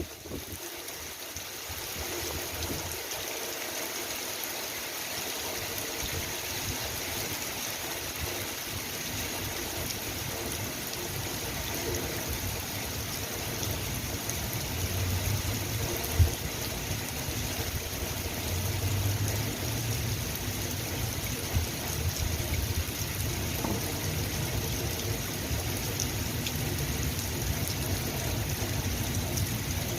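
Steady rain falling, an even hiss of drops and trickling water, with a low rumble swelling twice in the middle and one sharp knock about halfway through.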